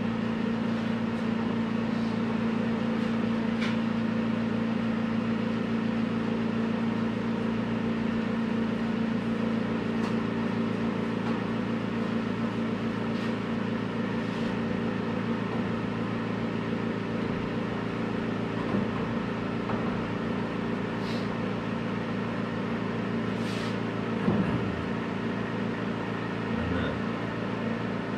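Steady machine hum, like a running fan motor, with a few faint knocks and taps as pine floor boards are handled in a pickup bed.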